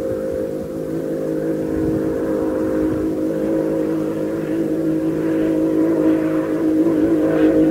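Inboard racing hydroplane's engine held at high revs on a speed run, a steady pitch that grows gradually louder.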